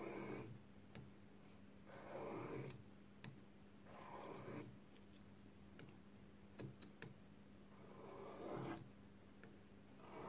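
Knife blade drawn slowly across a water-wetted sharpening stone: soft swishing strokes about every two seconds, with a few small clicks between them.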